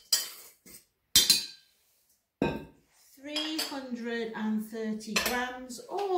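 A spoon clinks sharply against a stainless-steel stand-mixer bowl while stirring the dry ingredients, about four clinks in the first two and a half seconds. A woman then speaks from about three seconds in.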